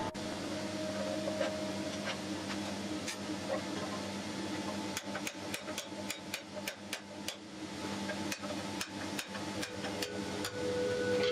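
A hammer striking steel, a quick run of light blows about halfway through, then slower, spaced blows, over a steady hum.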